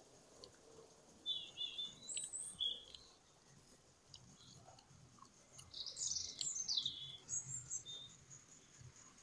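Garden birds singing: short chirping phrases about a second in, then a louder run of quick, falling notes about six seconds in.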